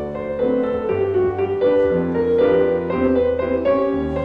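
Solo piano playing ballet-class barre accompaniment: held bass notes under a melody that moves note by note.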